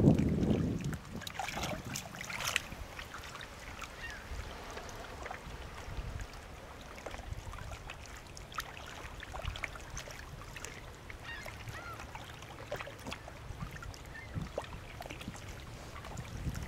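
A flock of birds calling as it flies overhead: many scattered short calls and chirps. Wind buffets the microphone at the start and again at the end.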